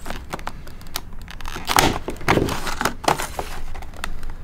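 Utility knife blade cutting through a hard plastic clamshell blister pack, the stiff plastic giving irregular sharp clicks and snaps as it is sliced.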